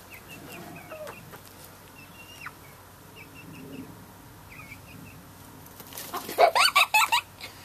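Backyard hens clucking softly with short repeated calls, then breaking into a burst of loud squawks about six seconds in, as a hen runs from a small child.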